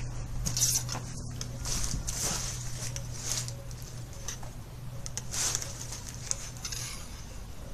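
Soft, irregular rustles and scrapes of a slingshot-style sling-bow and arrow being handled while aiming, over a steady low hum.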